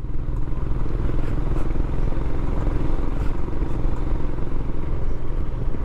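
Motorcycle engine running steadily under way, with a constant low rumble.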